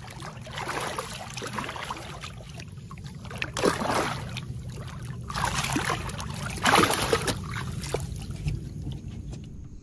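A redfish held by hand at the surface thrashes and splashes in the water, in four or five bursts with the loudest about a third and two-thirds of the way through, over a low steady rumble.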